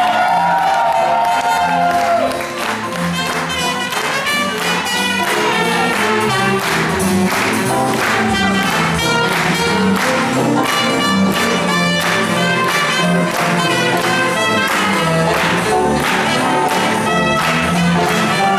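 Swing band playing an up-tempo tune, with trumpet and saxophone over a steady beat of drums, guitar and bass.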